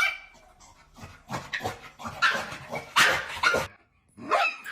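A dog making a run of short barks and yips, in several bursts with brief pauses between them.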